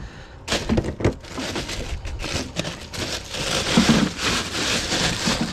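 Crushed ice crunching and shifting, with its plastic bag crinkling, as hands pack it over fish in a boat's fish box. A couple of sharp knocks come about half a second and a second in, and the crunching grows denser and louder from about three seconds.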